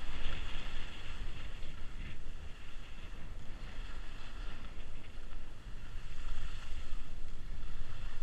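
Wind buffeting the microphone of a camera carried by a skier moving downhill, with the hiss and scrape of skis sliding over soft, choppy snow. The low rumble swells and eases unevenly.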